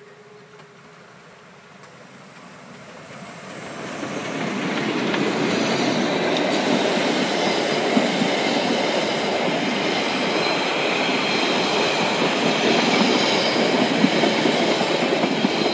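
HSB narrow-gauge steam train passing close by: the sound builds over the first few seconds as the locomotive comes up, then the coaches roll past with a steady rumble, a few sharp rail-joint clicks and a thin high squeal from the wheels.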